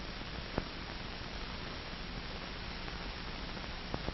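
Steady hiss and low hum of an old film soundtrack between lines of narration, with two short clicks, one about half a second in and one near the end.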